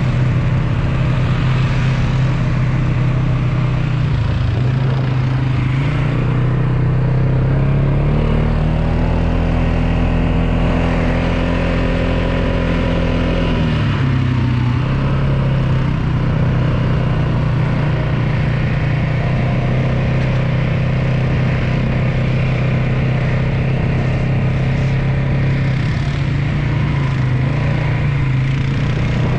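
A motor vehicle's engine running continuously under way. Its pitch climbs about eight seconds in, holds, then drops back about fourteen seconds in.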